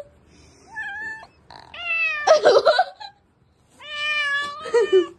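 Domestic cat meowing three times, the middle meow the loudest and longest.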